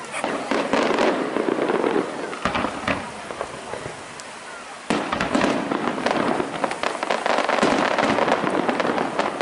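Aerial fireworks going off: a dense run of sharp bangs and crackling bursts that thins out about three to four seconds in. A sudden loud report just before five seconds starts another thick stretch of crackling reports.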